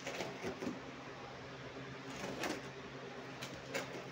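Tape-wrapped cloth parcel wrapping being cut and torn open by hand: a few short ripping and scraping sounds, over a steady low hum.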